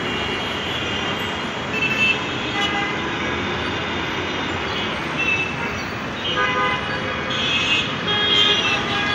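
Dense city road traffic: a steady wash of engine and tyre noise with vehicle horns tooting again and again, more of them in the last few seconds.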